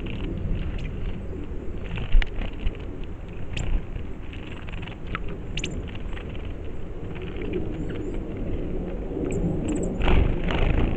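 Outdoor ambience at a ridge-top water hole: a steady low rumble with scattered clicks and rustles, a few brief high chirps, and a louder rustling burst about ten seconds in.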